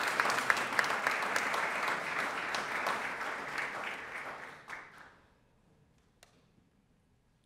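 Audience applauding with dense clapping that thins out and dies away about five seconds in, followed by near quiet with a single faint click.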